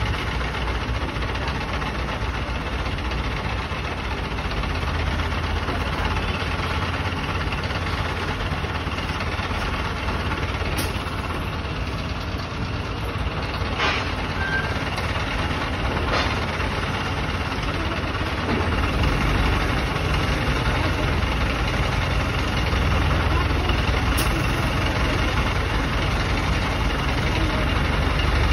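Diesel engine of an ACE mobile crane running steadily at idle, getting heavier and louder in the low end from about two-thirds of the way in.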